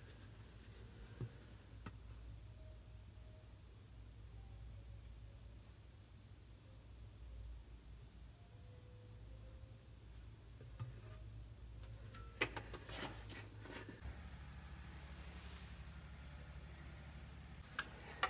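Faint insect chirping, a short high chirp repeating at a steady pace, over a low steady hum. A few light clicks and knocks come near the end.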